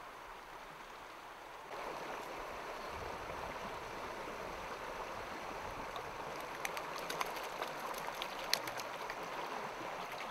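Small moorland stream running steadily over stones, a rushing sound that gets louder about two seconds in. In the second half comes a scatter of short, sharp clicks.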